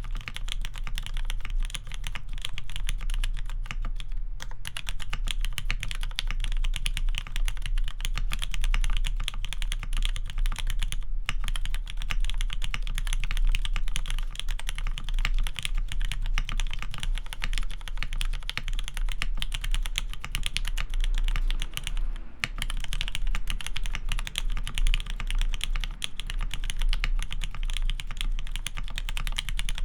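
Continuous fast typing on a gaff. 60 mechanical keyboard with lubed Cherry MX Black linear switches in a sprung aluminium plate and GMK keycaps: a dense, even stream of keystrokes, broken by brief pauses about 4, 11 and 22 seconds in.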